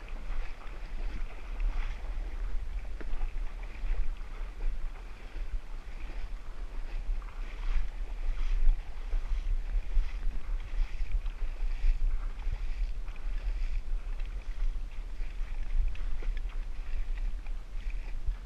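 Wind buffeting the microphone: a steady low rumble, with a fainter, fluttering rustle higher up.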